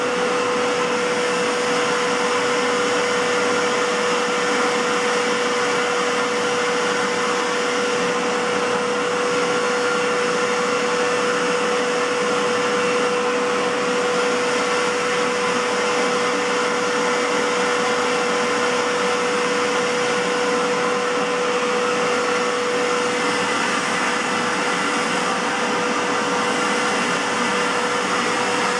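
Aerus Lux 5500 (C152C) Electrolux canister vacuum cleaner running steadily, a rush of airflow with a strong steady whine. Its motor has a bad bearing, according to the owner.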